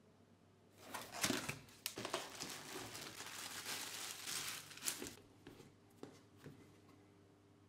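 Clear plastic bag crinkling loudly for about four seconds as a speaker driver is pulled out of it, followed by a few light clicks and taps.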